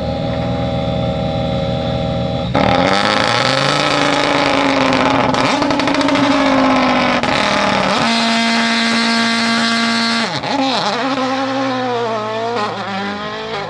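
World Rally Car turbocharged four-cylinder engine held at a steady high rev on launch control, then launching about two and a half seconds in with a sudden jump in loudness and revs rising through gear changes. Later the note holds steady again for about two seconds, then dips and climbs in quick swoops.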